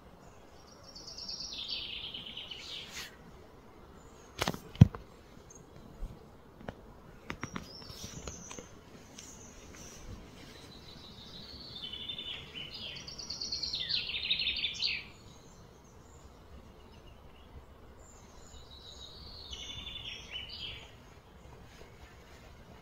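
A songbird singing three phrases of rapid trilled notes, each a few seconds long, with long pauses between them. Between the first two phrases come a few sharp knocks, the loudest about five seconds in.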